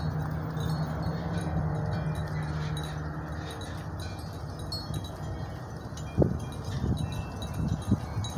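Wind chimes tinkling with scattered light high rings over a low steady hum. A few thumps come near the end.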